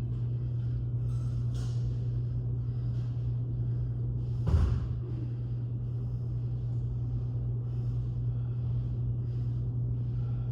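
Steady low hum with a single heavy thud about halfway through, like weight being set down on a gym floor.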